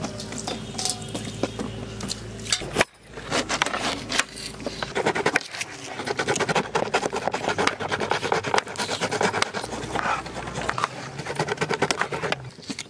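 Kitchen knife slicing bell peppers on a wooden cutting board: a rapid run of crisp cuts and blade taps on the wood, thickest from about three seconds in.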